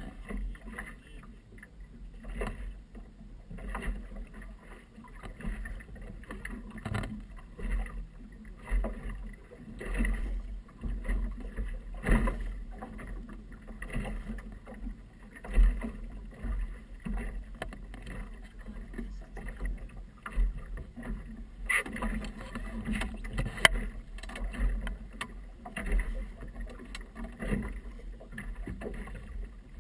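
Small waves slapping and knocking irregularly against the hull of a small motorboat riding in a light chop, with wind rumbling on the microphone.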